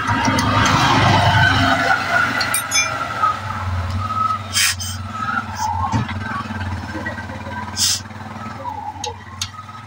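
A motor runs steadily with a low, even hum, and a couple of sharp metallic clicks come about halfway through and near the end.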